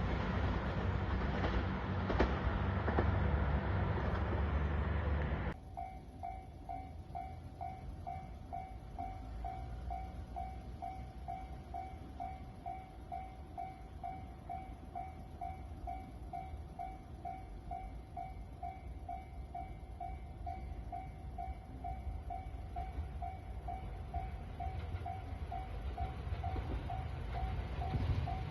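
A train running past with a heavy rumble, which cuts off suddenly about five seconds in. Then a Japanese level-crossing warning bell rings on and on, about two even dings a second, signalling that another train is due.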